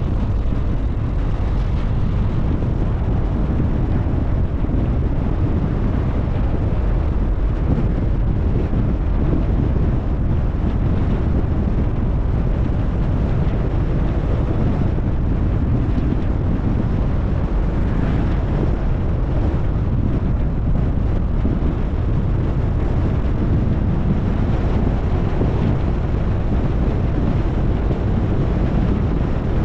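Steady rumble of a car being driven, road and wind noise with a heavy low end and no breaks.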